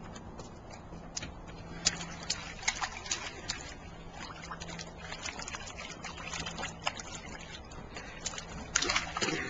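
Water splashing and sloshing in a small inflatable paddling pool as a toddler slaps it with his hands: scattered short splashes, with a louder burst of splashing near the end.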